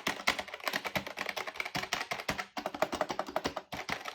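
Logitech G213 Prodigy membrane gaming keyboard being typed on fast, a dense clatter of key presses with a brief pause near the end.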